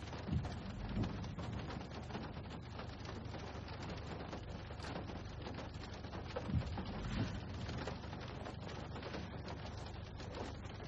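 Faint steady hiss of background noise picked up by a phone microphone, with a few soft low thumps.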